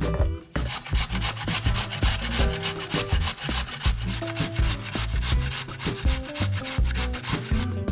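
Raw potatoes being grated on the coarse side of a metal box grater: quick, repeated rasping strokes that begin about half a second in.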